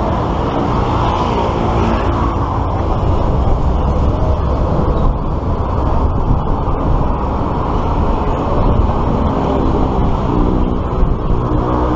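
Steady, loud road traffic noise from cars and buses on a multi-lane road.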